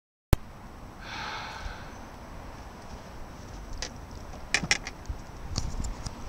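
Wind rumbling on the microphone in an open boat, cutting in abruptly after silence. A brief higher-pitched sound comes about a second in, and a few sharp clicks and knocks follow between four and six seconds in.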